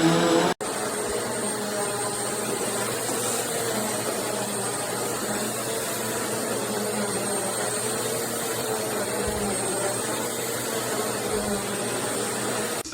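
Bissell CleanView Swivel Pet Reach upright vacuum cleaner running steadily, a constant motor rush with a faint high whine. It starts again after a brief break just under a second in and cuts off sharply at the end.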